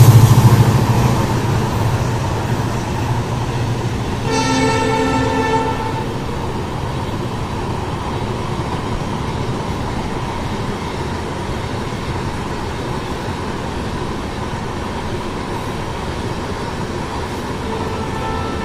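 Passenger coaches of a diesel-hauled express rolling past on the track, a steady rumble of wheels on rails, while the WDP4B locomotive's engine fades away in the first couple of seconds. About four seconds in, a train horn sounds for about a second and a half.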